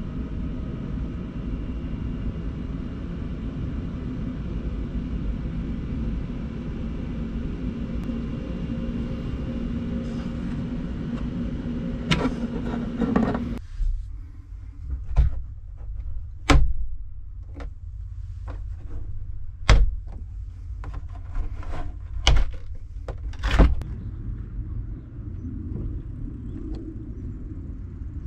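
A Daihatsu Hijet's small three-cylinder engine running steadily, heard from inside the van, which cuts off suddenly about halfway through. Then a series of sharp clicks and knocks from the plastic latches and stays of a hinged acrylic camper window being unlatched and swung open.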